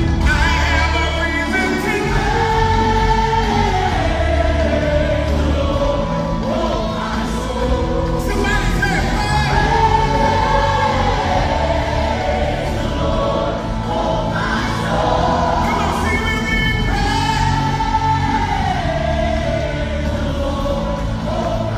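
Gospel choir singing over instrumental accompaniment, with long held notes that bend up and down.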